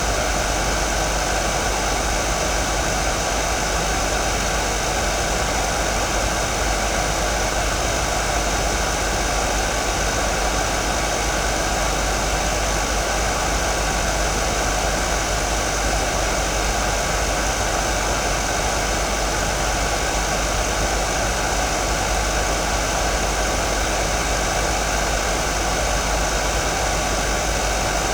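Hair dryer running steadily: an unchanging noise of fan and blown air, with a low hum underneath, picked up by a vintage Toshiba EM-420 electret condenser microphone.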